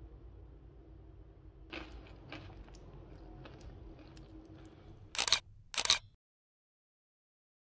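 Faint crackles and clicks over a low room hum, then a camera shutter sound effect snaps twice in quick succession about five seconds in, and the sound cuts to dead silence.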